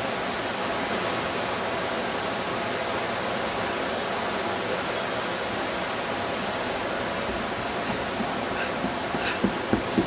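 Steady, even hiss of background noise at a constant level, with a few short sharp clicks near the end.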